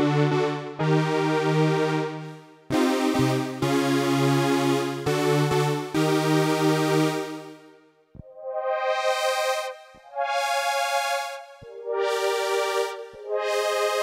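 Behringer DeepMind 12 analog polysynth playing a bright supersaw patch as sustained chords. For the first half the chords sit over a low bass note. From about eight seconds in, higher chords without the bass swell in and fade away, one after another.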